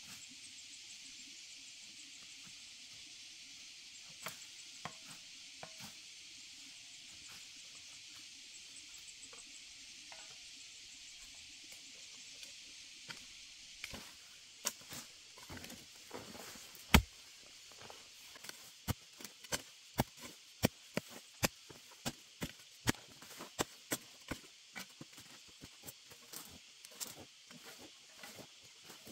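Hand hoe chopping into earthy, rooty soil, a run of sharp strikes roughly one to two a second that begins about halfway through, one of them much louder than the rest. Before the strikes there is only a steady high hiss.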